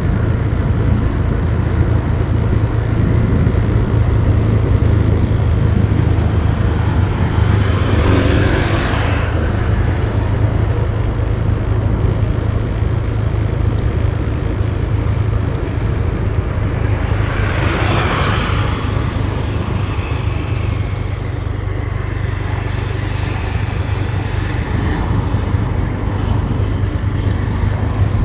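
Motorbike riding on a winding road, heard from the rider's seat: a steady low engine hum under a rushing noise of wind and tyres. Two vehicles whoosh past, one about nine seconds in and one about eighteen seconds in.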